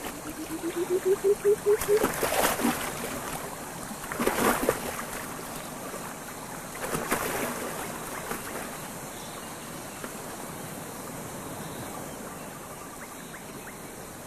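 Water splashing: louder splashes about two, four and seven seconds in over a steady background of flowing, trickling water. A wavering tone rises slowly in pitch during the first two seconds.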